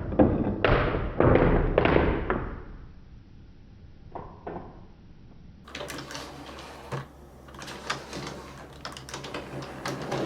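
Marbles rolling and clacking along a plastic TrixTrack marble-run track: loud clattering for the first couple of seconds, a quieter stretch with a few soft knocks, then a dense patter of small clicks from about six seconds in.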